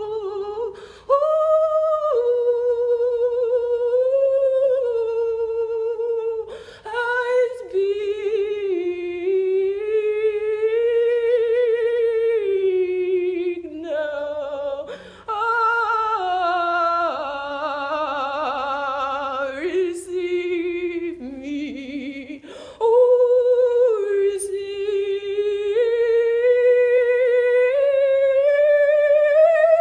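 A woman's voice singing wordlessly in long held notes that slide slowly up and down in pitch, broken by a few short pauses for breath.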